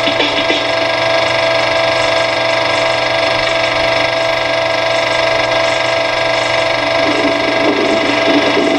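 Steady machine hum, like a small motor running, with several held tones.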